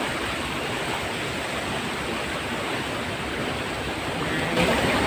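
Waterfall rushing with a steady noise of falling water, growing louder about four and a half seconds in.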